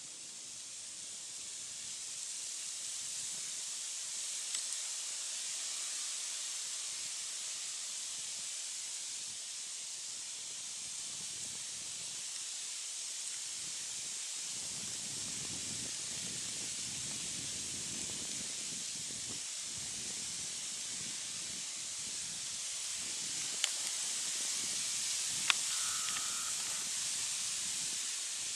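Steady high hiss of forest background noise, with a few sharp clicks, two of them close together about three-quarters of the way through.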